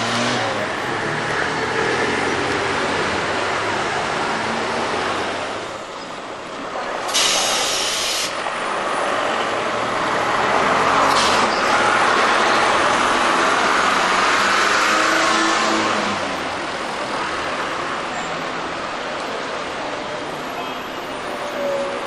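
City street traffic: buses and cars running past. A sharp hiss lasts about a second roughly seven seconds in. The loudest stretch comes in the middle, as a minibus drives past close.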